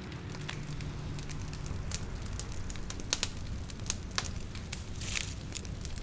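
Wood campfire crackling, with irregular sharp snaps and pops over a low steady hiss and a brief hissing flare near the end.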